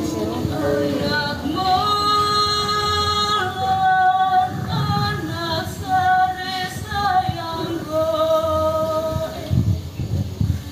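A woman singing unaccompanied, in phrases of long held notes, with a few low thumps beneath about halfway through and near the end.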